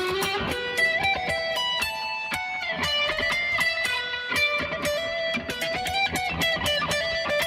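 Music: a fast melody of short plucked notes.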